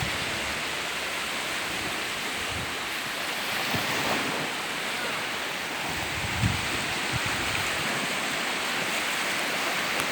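Sea waves washing onto the beach: a steady surf noise, with a brief low bump about six and a half seconds in.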